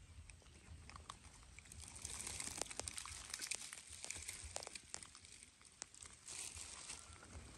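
Faint rustling and crackling of dry leaf litter, with scattered light clicks and snaps, louder from about two to five seconds in and again briefly near the end.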